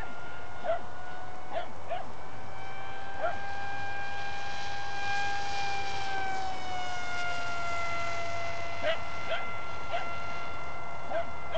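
Electric motor and propeller of a Dynam Hawksky RC glider on a 4-cell battery, whining steadily as the plane flies past. The pitch rises slightly around the middle and drops as it passes. Several short, sharp calls sound over it.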